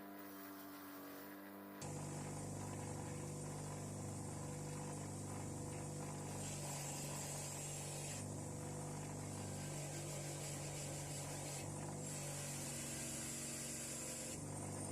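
Bench grinder motor starting up about two seconds in and running with a steady hum, with several stretches of high hiss as a wire wheel brushes rust off a steel spanner.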